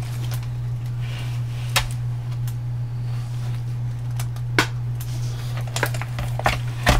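Scattered clicks and knocks of small items being handled while a workbench is set up, over a steady low hum. The sharpest knocks come in a cluster near the end.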